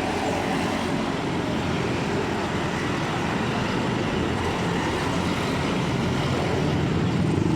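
Steady rumbling, rushing background noise with no distinct events.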